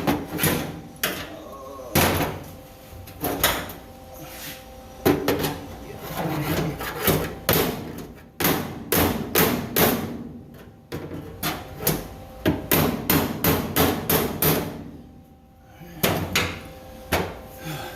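Repeated hammer blows on the sheet-metal floor pan of a Ford F100 cab, irregular strikes with quick runs of blows, over a faint steady hum.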